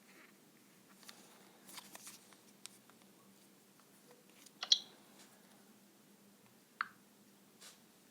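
Sparse light clicks and taps, the sharpest about five seconds in and a lighter one about two seconds later. No ringtone plays.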